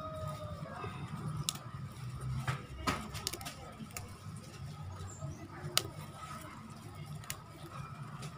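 Hand picking keerai leaf stems from a potted plant: leaves rustling, with a few sharp snaps as the stems are broken off.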